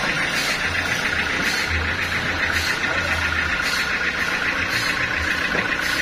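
Band sawmill running unloaded: a steady high whine with a light tick about twice a second over a low engine rumble, while the jackfruit log is positioned for the cut.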